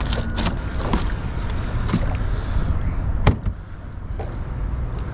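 A boat cooler's lid shutting with one loud thud about three seconds in, after a few lighter knocks as a fish is put into the cooler. A steady low rumble lies underneath.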